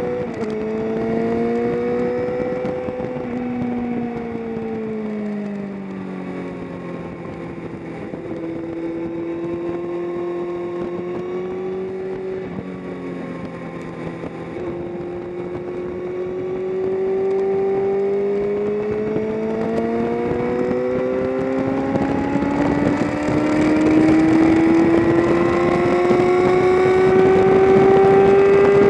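Motorcycle engine on a race track, heard from on board with wind noise. It drops in pitch and shifts gear while slowing, runs low for a few seconds, then climbs steadily and louder under acceleration through the second half.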